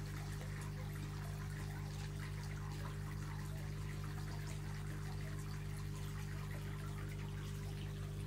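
Water trickling and pouring steadily, over a constant low hum.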